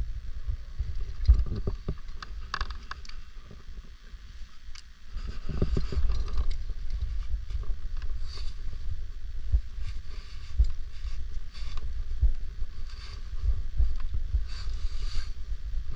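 Wind buffeting the camera's microphone as a low, uneven rumble, with scattered rustling and scraping; it eases for a couple of seconds about three seconds in, then picks up again.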